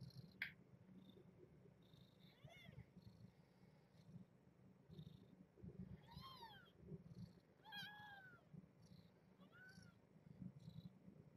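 Newborn kittens mewing faintly in short, high-pitched squeaks, about four times, over the mother cat's low, pulsing purr as she nurses them. A brief sharp click comes near the start.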